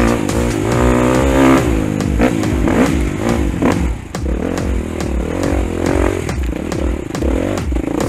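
Husqvarna dirt bike engine revving up and down as it is ridden over a rocky trail, with the throttle easing off briefly about four seconds in.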